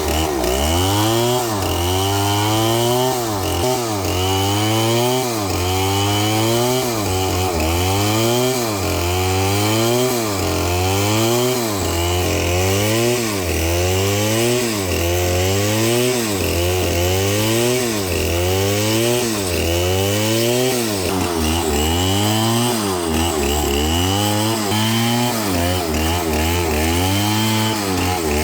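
Two-stroke chainsaw engine running at high revs, its pitch rising and falling over and over about once a second as it is revved and loaded in the cut.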